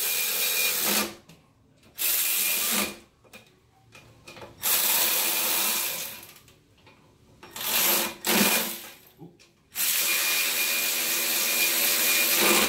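Cordless power ratchet running down the intake manifold nuts and bolts in five spurts of one to three seconds each, with short pauses between. The motor gives a steady whine.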